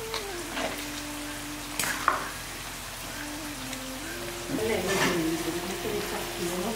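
Wooden spoon stirring curry in a clay pot, scraping and knocking against the pot, with a sharp knock about two seconds in and busier stirring noise from about four and a half seconds. A wavering tone runs underneath.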